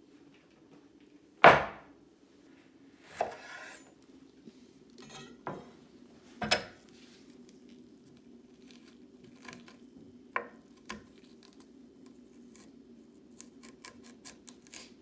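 Kitchen utensils knocking on a wooden cutting board while jalapeño peppers are cut and seeded: a handful of sharp knocks, the loudest about one and a half seconds in, then light spoon clicks and scraping near the end, over a faint steady hum.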